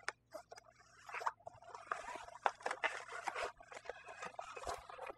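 Padded nylon gig bag being opened: zipper and fabric rustling, with faint irregular clicks and scrapes as a plastic trumpet is lifted out of it.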